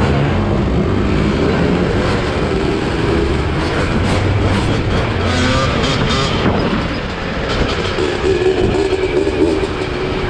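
Several motorcycle and dirt bike engines running together, with brief revs partway through.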